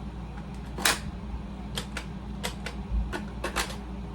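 Scattered sharp plastic clicks and taps from a Nerf Motoblitz toy blaster being turned over and handled, the loudest about a second in. Under them runs the steady low hum of an air conditioner.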